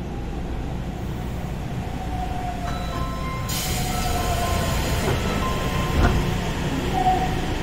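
Sendai Subway Namboku Line train standing at an underground station: a steady low hum from the stopped train, with a hiss of air that starts about three and a half seconds in and carries on. Faint steady tones sound in the background, and there is a short thump just after six seconds.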